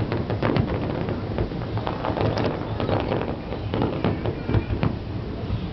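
Fireworks display going off: a dense, irregular run of pops and bangs, several a second, over a steady low rumble.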